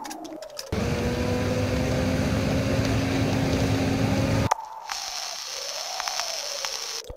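Bus engine and road noise heard from inside the bus: a steady drone with a low hum that starts abruptly about a second in and cuts off suddenly a few seconds later. Before and after it, a softer tone swoops up and down, with scattered clicks.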